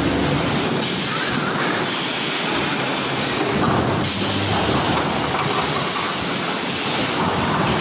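Steady machinery noise from an EPS 3D wire-mesh panel welding machine running on the factory floor.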